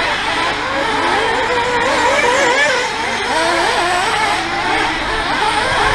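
Several radio-controlled off-road model racing cars running round a dirt track together, their motors' pitch rising and falling as they accelerate and brake.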